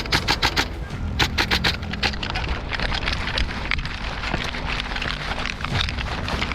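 Airsoft electric rifle firing two full-auto bursts of rapid, even clicks, about ten shots a second, the second ending about two seconds in, followed by scattered clicks and rustling.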